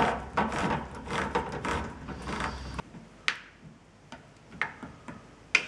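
Hand-held can opener cranking around the rim of a steel can of malt extract: a run of rapid clicks, about four a second, that stops nearly three seconds in. After that come a few scattered light clicks and taps as the cut lid is pried up.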